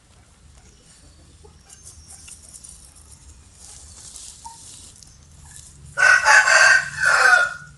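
A rooster crows once, loudly, about six seconds in, the call breaking into two parts, after a stretch of faint scattered background sounds.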